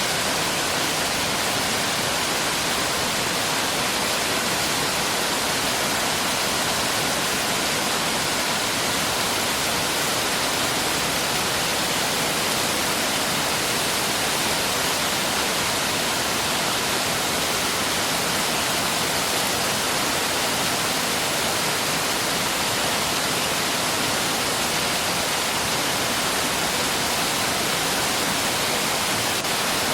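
Mountain stream rushing over rocks, a steady, even water noise with no changes.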